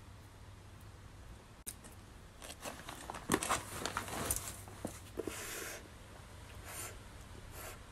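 Close crackling and rustling noises in quick irregular bursts, loudest a little past the middle, over a quiet room background.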